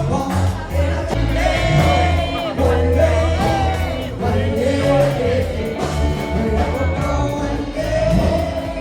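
Music with singing: a sung melody over steady bass notes and a regular beat.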